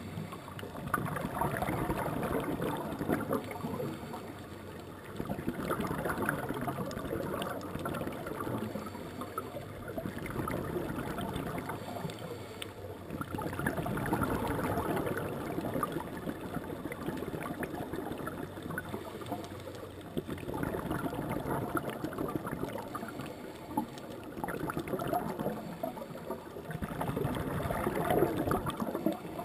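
Scuba regulator exhaust bubbles heard underwater: bubbling bursts a few seconds long come about every seven seconds, with quieter breaks between, in time with the diver's breathing.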